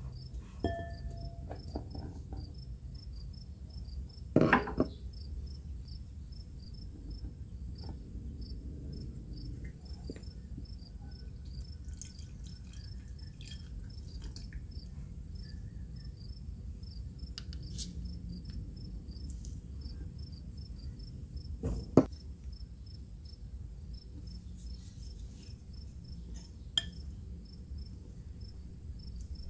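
A cricket chirps steadily in the background, about four chirps a second, over a low room hum. In front of it come soft kitchen sounds of flour and water going into a glass bowl and being stirred with chopsticks: a loud rustling thump about four seconds in as the flour is tipped from a measuring cup, and a sharp clink about two-thirds of the way through.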